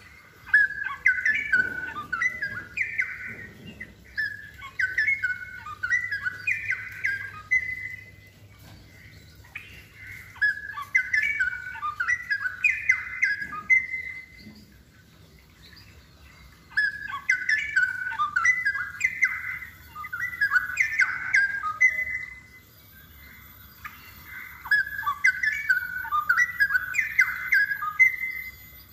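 Straw-headed bulbul singing in loud, rich warbling phrases, each a few seconds long, with short pauses between them: the bird is in full song.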